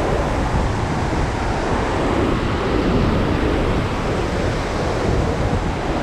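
Steady rush of the Iguazu waterfalls and the white-water rapids below them.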